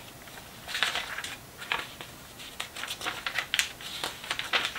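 Thin, old Bible pages being handled and turned by fingertips: irregular bursts of crisp paper rustling and crackling, with a few sharp little clicks.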